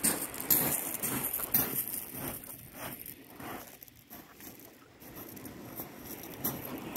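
Footsteps crunching on shingle pebbles, irregular and uneven, quieter for a couple of seconds in the middle before picking up again.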